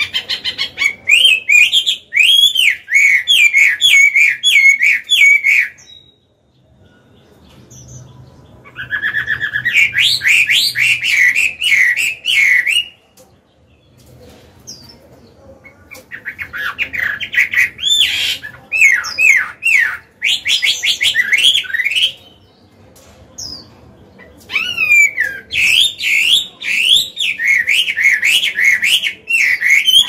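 Chinese hwamei singing: four long phrases of rapid, varied whistled notes, each several seconds long, with short pauses between them.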